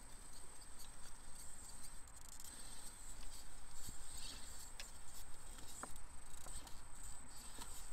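Axial Capra UTB18 1/18-scale RC rock crawler driving slowly over rocks, its electric motor giving a high, thin whine that swells and fades with the throttle. Scattered sharp clicks and ticks come from its tyres and chassis against the rocks.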